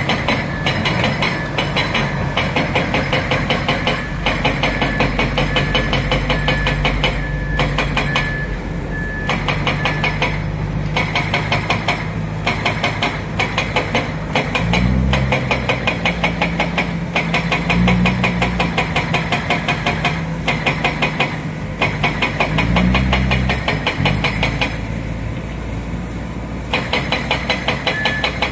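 Hitachi Zaxis 210F excavator's diesel engine running under load with a fast, even ticking clatter; the engine note rises briefly twice as it works, about halfway through and again about three-quarters of the way in.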